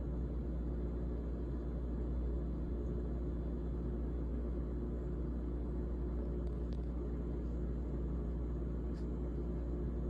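GE GTH18XCTZRBB top-freezer refrigerator running with a steady low hum, with two faint ticks in the second half.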